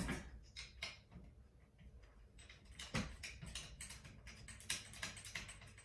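Faint, irregular small clicks and ticks as nuts are hand-threaded onto a ceiling fan motor's mounting screws, with a sharper click about three seconds in.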